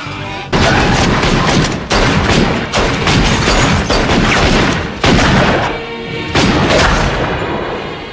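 Loud booms over music, coming in sudden bursts every one to two seconds, each fading off before the next.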